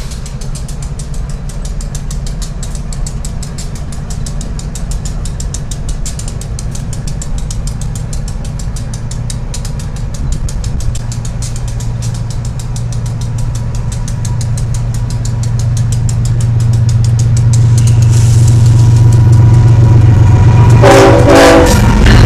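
BNSF diesel locomotives at the head of a double-stack freight train pass close by, their engines a steady low drone that grows louder as they come alongside. Near the end a short horn blast sounds.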